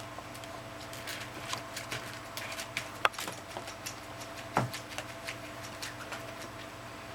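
Puppies licking and nuzzling a kitten: irregular small clicks and smacks, with two louder knocks about three and four and a half seconds in. A steady low hum runs underneath.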